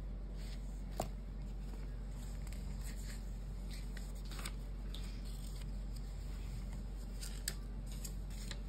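Close-up handling of a pen and book: a pen writing on paper and being set down, with a sharp click about a second in and another near the end, over a steady low hum.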